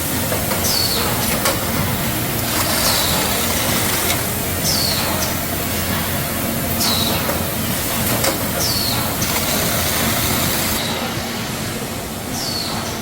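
Mandarin sorting line machinery running steadily with a continuous rolling rumble. A short, high squeak that falls in pitch recurs about every two seconds.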